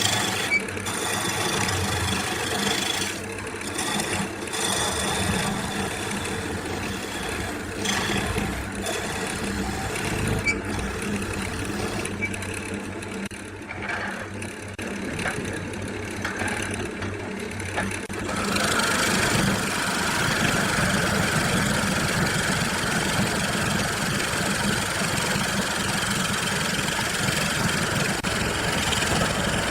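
Motor-driven workshop machinery running, uneven with scattered knocks at first; about two-thirds of the way in a louder, steadier machine sound takes over.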